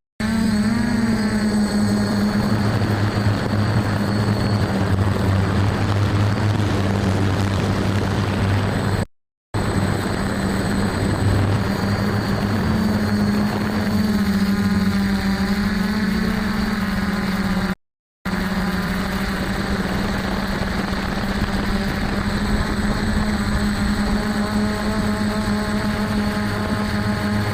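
F450 quadcopter's stock brushless motors and propellers humming steadily in flight, the pitch drifting slightly as the throttle changes. The sound drops out twice, briefly.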